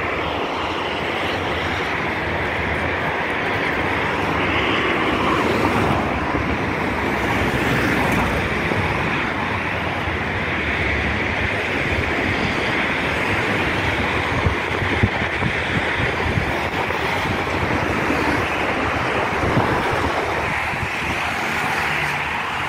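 Steady wind rumbling on the microphone, mixed with the hiss of road traffic passing below.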